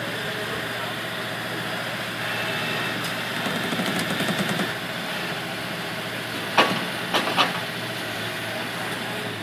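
A vehicle engine idling under steady street noise, growing louder for a couple of seconds from about two seconds in. About six and a half seconds in come three sharp knocks in quick succession.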